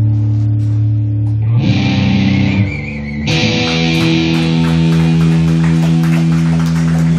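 Amplified electric guitars and bass letting held notes ring on, steady and loud. The held pitches change about one and a half and three seconds in, with a hissy, harsher patch between, and faint picked or struck notes later.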